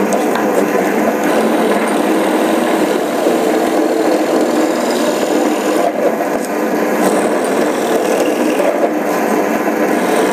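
YR-13BD 250 W bench drill running and boring into a piece of wood, a steady unbroken drilling noise.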